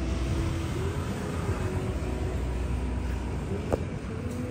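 Steady low rumble of outdoor background noise, with one sharp click a little under four seconds in.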